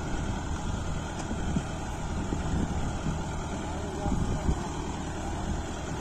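Kubota MU5502 tractor's diesel engine running steadily under load as it pulls a bed-forming implement through tilled soil.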